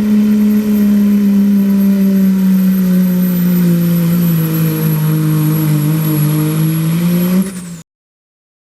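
Open-class diesel pulling truck's engine running hard at high revs, a loud steady drone that drops a little in pitch about halfway through. The sound cuts off suddenly near the end.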